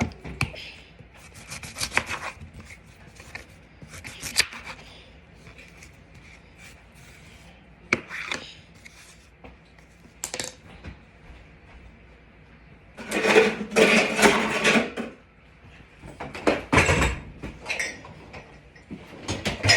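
Knife chopping and scraping on a cutting board: scattered knocks and clicks, with a busier run of scraping and knocking about two-thirds of the way through.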